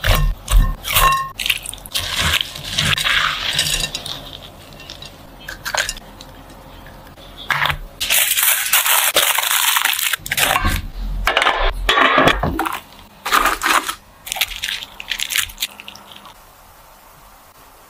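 Food-preparation handling sounds: a few short ringing clinks near the start, then bursts of rustling and crinkling, the longest lasting about two seconds around the middle.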